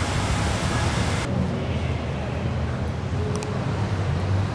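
Street traffic ambience: a steady low rumble of passing vehicles. A hiss over it cuts off about a second in, leaving mainly the rumble.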